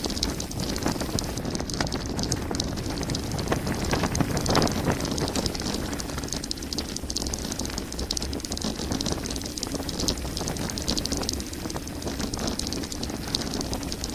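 Mountain bike descending a gravel forest road at speed: tyres crunching over gravel and the bike rattling over the bumps, with wind buffeting the microphone.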